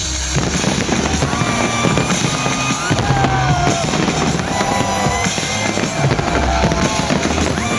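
Fireworks bursting and crackling over loud music with a heavy bass beat.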